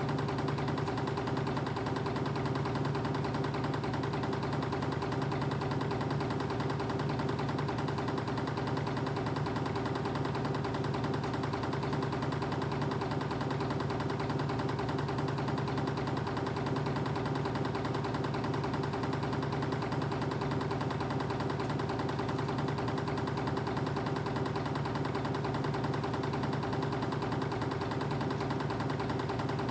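Spring-wire machinery running steadily: a reciprocating wire uncoiler paying off wire, with a constant hum and a fast, even chatter that does not change.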